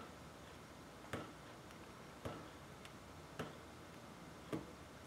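Faint, regular ticks, a little slower than one a second, over low background noise.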